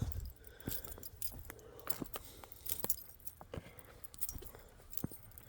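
Footsteps of a person walking on a woodland floor: irregular sharp crunches and clicks, roughly one every half-second to second, with some light jingling.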